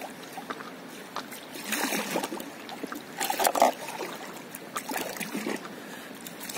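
Paddles working calm sea water: splashing and dripping as the blades dip and lift, with two louder strokes about two and three and a half seconds in.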